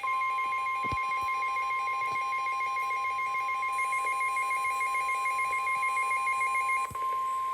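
NOAA Weather Radio warning alarm tone, a steady 1050 Hz tone, sounding from a Midland WR-300 weather radio together with the radio's own rapidly pulsing alert beep; the beeping stops about seven seconds in while the steady tone carries on. The tone signals that a warning is about to be read, here a Special Marine Warning.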